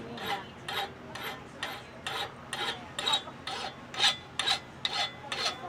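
Hand file rasping across metal in a run of short, even push strokes, about two or three a second, smoothing the piece by filing.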